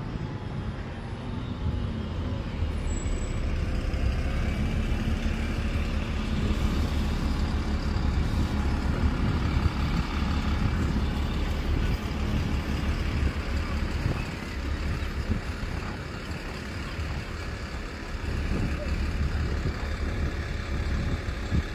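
City road traffic, with the low engine rumble of a double-decker bus passing close by. It grows louder a couple of seconds in and eases off after about fourteen seconds.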